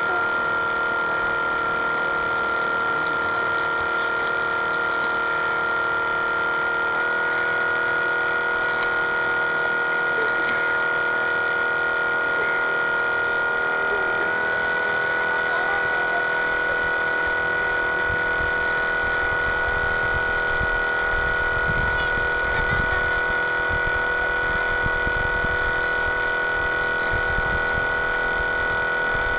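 Radio-controlled model boat's motor running continuously with a steady whine, heard from on board. The pitch steps slightly twice, about a third and halfway through.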